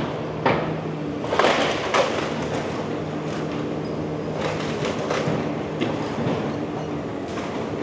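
Komatsu PC360 diesel excavator running steadily while demolishing a building, with crunching and clattering of masonry and debris breaking and falling. The biggest crashes come about half a second in and again about a second and a half to two seconds in, with smaller knocks a few seconds later.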